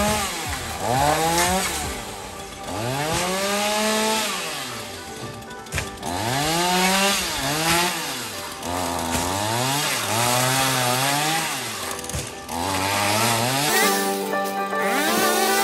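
Gasoline chainsaw revving up and falling back over and over, its engine pitch rising and dropping every second or two as it prunes palm fronds. Music comes in near the end.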